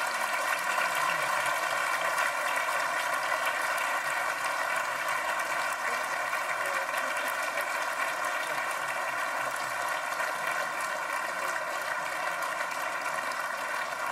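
A large audience applauding steadily: a dense, even patter of many hands clapping at once.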